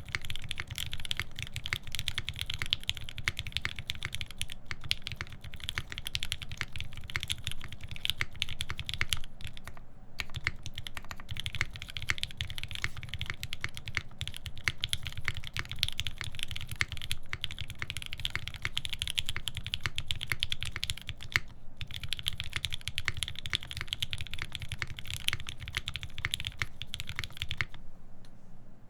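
Steady fast typing on an UNIKORN R2.1 mechanical keyboard with lubed Alpaca linear switches, a full FR-4 plate and GMK keycaps: a dense run of keystrokes with brief pauses about ten and about twenty-one seconds in, stopping just before the end.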